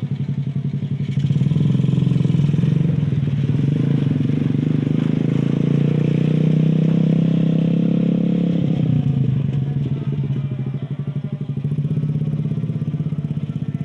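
Homemade mini jeep's motorcycle engine, taken from a motor tricycle, running steadily. It eases off about two-thirds of the way through, then picks up again.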